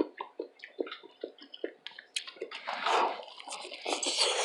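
Close-miked wet chewing of hot corn on the cob, with mouth smacks about every 0.4 s. From about two seconds in, a louder breathy hiss takes over.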